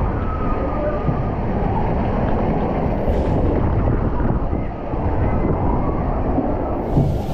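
Steady rush of water and rumble of a ride down a water slide, with wind noise on the microphone.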